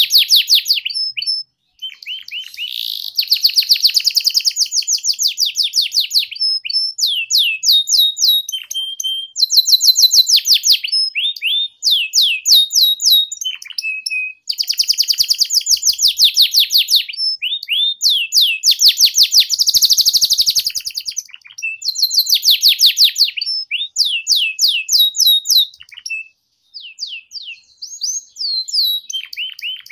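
Domestic canary singing: long phrases of fast, high trills of rapidly repeated chirps, broken by a few short pauses.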